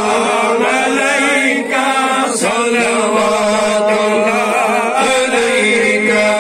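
Men chanting an Islamic devotional salaam together: a lead male voice through a microphone, with other voices joining, in long held notes with wavering ornaments.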